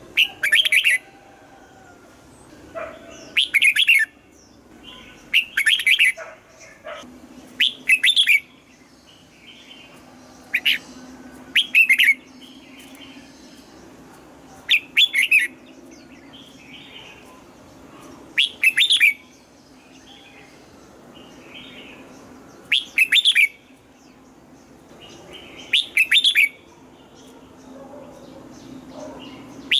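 Red-whiskered bulbul singing: short, loud, whistled song phrases repeated about every two to three seconds.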